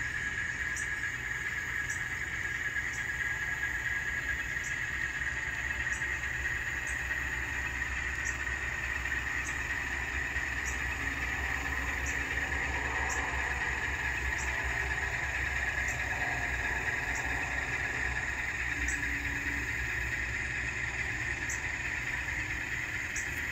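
ESU LokSound decoder in an N scale model locomotive playing an Alco diesel engine sound through its small speaker, running steadily as the train pulls freight cars, with a faint tick a little more than once a second.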